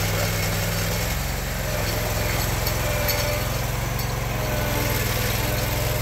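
Vermeer SPX25 remote-control vibratory plow's engine running steadily, with a low, even hum and a faint higher whine coming and going.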